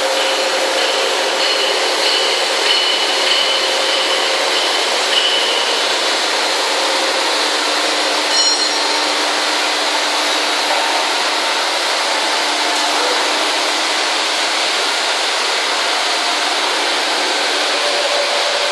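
Large milling machine's cutter head machining a metal workpiece: a loud, steady cutting noise with a faint whine, and a brief high squeal about eight seconds in.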